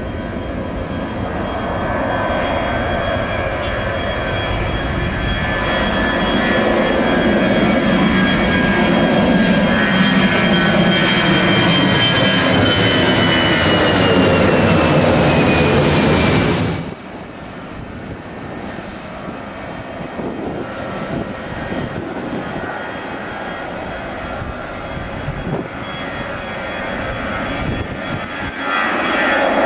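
Airliner engines at take-off power passing close by: loud engine noise that builds, with whining tones that slide down in pitch as the aircraft goes past. About 17 seconds in it cuts off suddenly, leaving quieter steady engine noise that grows louder again near the end.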